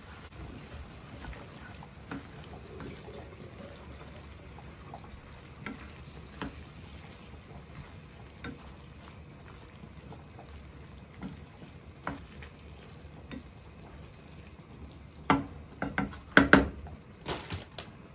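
Wooden spatula stirring a thick minced-meat and vegetable tomato sauce in a frying pan, with soft scrapes and small clicks over a faint sizzle. Near the end come several loud knocks of utensils against the pan.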